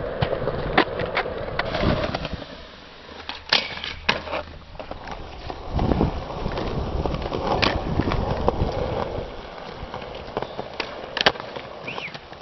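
Skateboard wheels rolling on concrete, broken by several sharp clacks of the board popping and landing during tricks; the loudest clack comes near the end.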